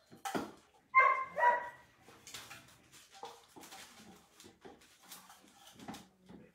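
A dog barking: a loud, high-pitched yelp about a second in, followed by quieter scattered sounds.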